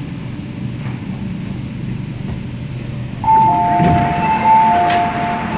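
MTR K-Train's interior hum as it comes to a stop at the platform, then about three seconds in the door-opening chime: a higher and a lower beep alternating as the doors open, with a sharp click from the door gear.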